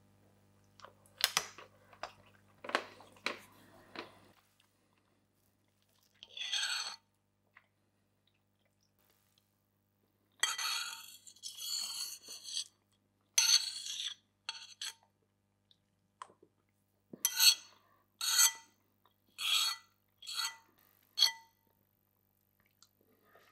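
Metal fork on a plate: a few sharp clinks as the cake is cut, then a run of scrapes across the plate, ending in about five ringing scrapes roughly a second apart as the last of the cream is scraped up.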